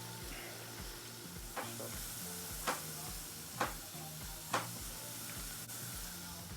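Sliced onions sizzling as they fry in hot oil while being stirred, with four sharp knocks of the stirring utensil against the pan about a second apart.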